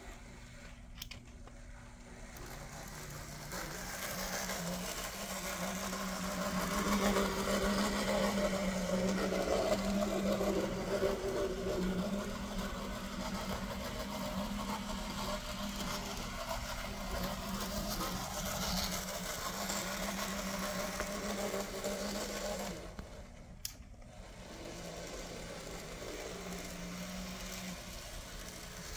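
Märklin Z-scale 4-6-0 steam locomotive running around the track, its small electric motor and gears making a steady buzzing whine with a low hum. It swells through the middle, breaks off briefly near the end, then goes on quieter. This is the running noise of a new unit that is not yet broken in.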